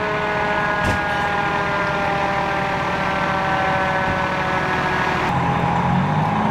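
Fire apparatus running on scene: a whine of several steady tones that slowly drops in pitch. About five seconds in it gives way abruptly to a lower, steady engine hum.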